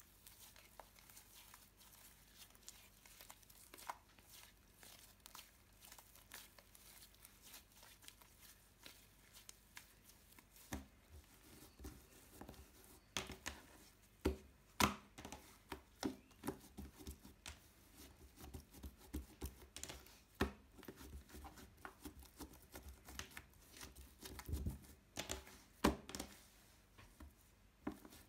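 Glitter slime being squeezed, stretched and pressed flat by hand, giving sticky crackles and small pops. The crackling grows busier and louder from about eleven seconds in.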